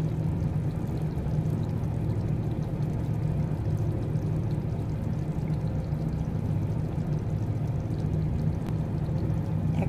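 Steady low hum with an even hiss over it, unbroken kitchen background noise with no distinct events.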